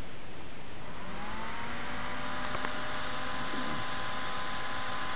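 120 mm DC computer cooling fan spinning back up to speed after being switched on: a whirring hum whose tones rise in pitch about a second in, then hold steady over an even rush of air.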